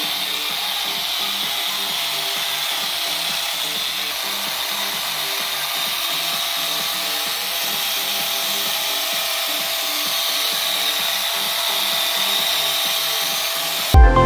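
Small cordless mini polisher with an extension shaft spinning a little foam pad against car paint: a steady whine with rubbing hiss that drifts slightly in pitch as the pad works the door-handle recess. Loud electronic music cuts in just before the end.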